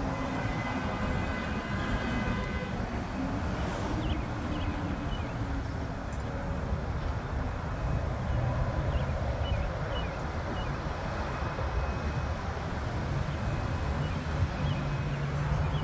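Steady, distant rumble of a four-engine jet's engines as it flies overhead, with a faint high whine over the first couple of seconds.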